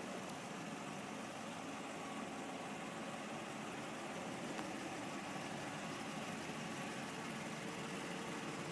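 2014 Chevrolet Silverado 1500 4x4 pickup idling steadily.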